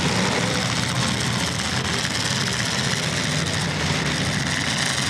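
Engines of several demolition derby cars running together in the arena as a steady drone, with no single crash standing out.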